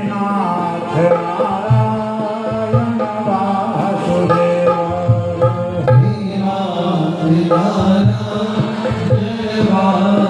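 Indian devotional music playing: a melody over a steady drone, with hand-drum beats, between sung chant verses.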